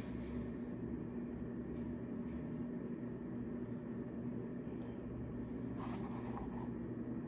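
Steady low room hum with a constant drone, and a brief faint rustle about six seconds in.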